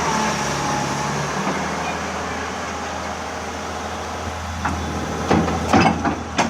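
Excavator's diesel engine running steadily, with several sharp knocks or clanks near the end.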